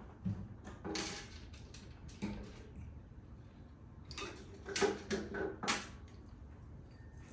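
Several sharp knocks and clinks of objects being handled: a few spread over the first couple of seconds, then a quick run of four or five about four to six seconds in.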